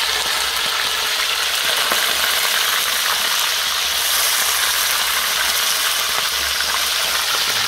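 Coconut gobies frying in a pan of hot oil: a loud, steady sizzle with crackling and spitting.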